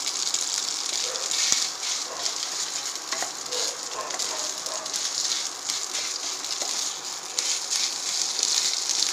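Mashed boiled potato and chopped onion sizzling in hot oil in a non-stick kadhai, stirred with a wooden spatula whose scrapes and taps against the pan come through here and there.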